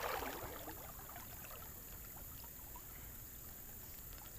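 Faint, steady outdoor ambience by a river: water running in a low hiss, with a few small scattered ticks.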